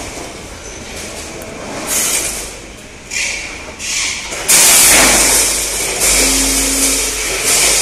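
14-head multihead weigher in operation: a series of short bursts of rushing, rattling noise as weighed batches of springs are released into the discharge chute, the loudest and longest about halfway through, with a brief steady tone near the end.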